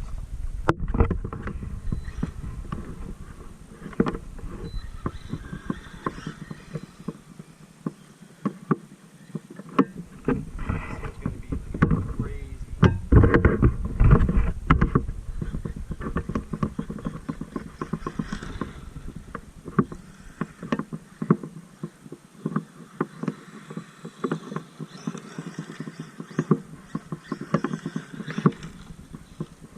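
Traxxas MAXX RC monster truck driving over rough ground: an irregular clatter of knocks, bumps and rattles over a rushing noise, loudest in a burst about halfway through.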